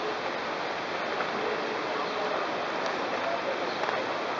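Steady rush of water splashing from outdoor fountains, with faint voices mixed in.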